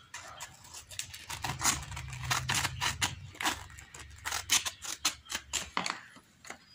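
Scissors cutting sheets of P240 waterproof sandpaper: a quick run of snips and clicks, with the stiff paper rustling between cuts.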